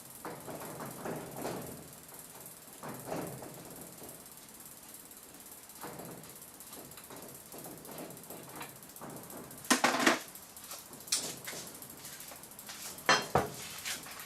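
Old left pedal being unscrewed from a bicycle crank with a pedal wrench, its reverse thread turned loose: ratcheting, clicking metal sounds of the wrench and bike parts. A few sharp, loud metal clanks come near the end.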